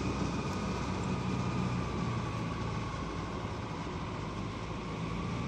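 Steady, even drone of a small tug boat's engine pushing a river cable ferry.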